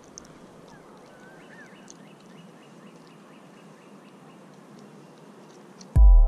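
Faint pond-side evening ambience with a few soft bird chirps and a thin, high, steady tone. Near the end, electronic dance music with a heavy beat cuts in loudly.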